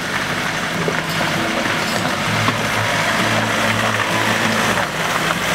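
Land Rover Defender engine running under load as the 4x4 crawls over rocks, its note shifting a couple of times.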